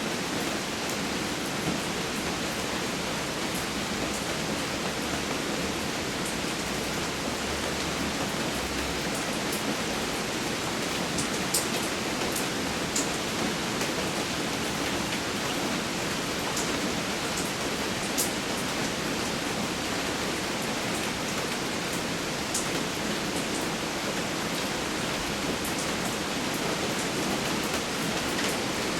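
Steady rain falling, an even hiss with scattered sharp drips and taps of drops striking close by.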